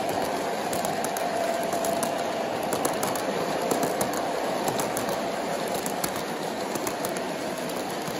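O-gauge model freight train rolling past on a curve of track: a steady hum from the running train with light, irregular clicking as the cars' wheels pass over the rail joints.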